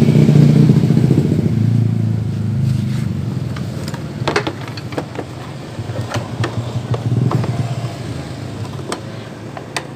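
Another motorcycle's engine running close by, fading steadily over several seconds, with a few sharp metallic clicks of hand tools on the open engine.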